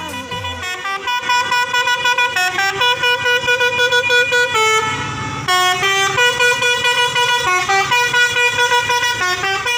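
Truck's musical air horn playing a fast tune of short pulsed notes, about four a second. It breaks off briefly about five seconds in, then starts again.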